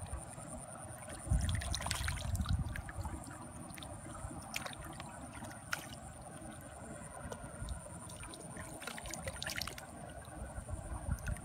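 Shallow muddy water trickling and splashing as hands work in it around a submerged bamboo fish trap, with a low rumble from about one to three seconds in and a few sharp clicks.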